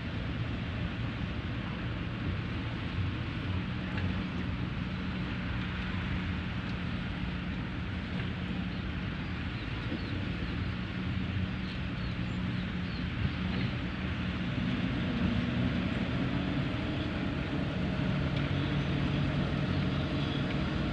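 Diesel engine of heavy earthmoving machinery running steadily under work, with a deep engine hum. About two-thirds of the way through it gets a little louder as the engine note climbs.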